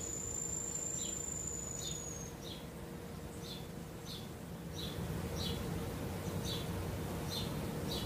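Insects calling in tropical forest: a steady high-pitched whine that stops about two seconds in, and short chirps repeating roughly every two-thirds of a second, over a low steady background.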